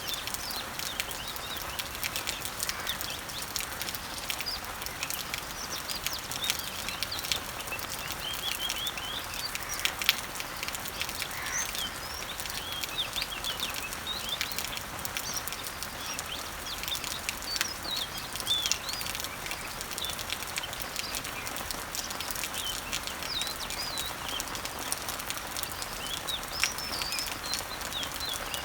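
Steady patter of rain falling on leaves, with many separate drops ticking, and several songbirds chirping and singing in short, quick phrases throughout.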